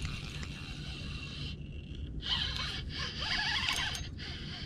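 Spinning reel cranked by hand, giving a rasping whir in two short bursts, a little after two seconds and around three seconds in, over a steady low rumble.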